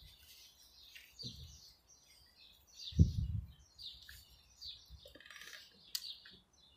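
Small birds chirping repeatedly in the background, with a dull low thump about three seconds in.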